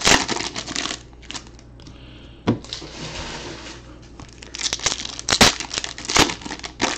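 Foil trading-card packs of 2018 Topps Chrome being torn open by hand, the wrappers crinkling and tearing. Sharp crackles come near the start and again in the last two seconds, with fainter rustling between.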